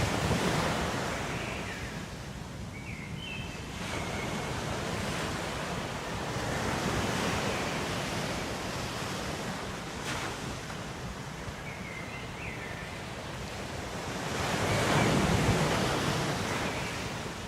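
Ocean waves washing in on the shore, a steady rush of surf that swells three times, loudest near the end. A few short high chirps sound over it early on and again after about twelve seconds.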